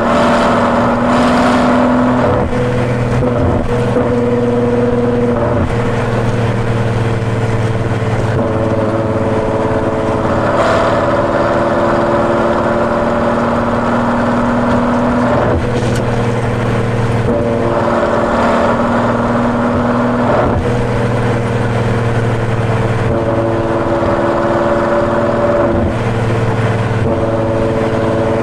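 Ferrari GTC4Lusso's V12 through its Capristo aftermarket exhaust, heard from outside the car while it drives on: a steady engine note that settles at one pitch for a few seconds, then steps to another as the revs change, over a continuous road-noise hiss.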